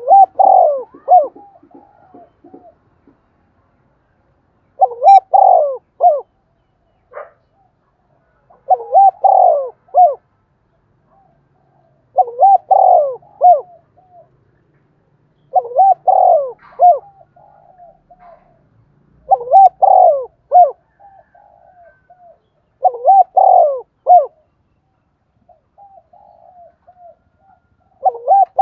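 Spotted dove cooing: eight repeated coo phrases, one about every three and a half to four seconds, each a quick run of notes followed by softer trailing coos. This is the driving, calling coo of a caged dove, used as a lure to draw in wild doves.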